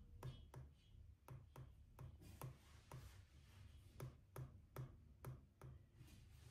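Stylus tip tapping on a tablet's glass screen as quick short strokes are drawn: faint light clicks, about three a second.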